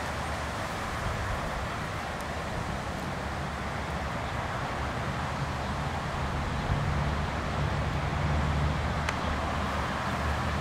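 Steady outdoor background noise: an even hiss over a low rumble, with no distinct event.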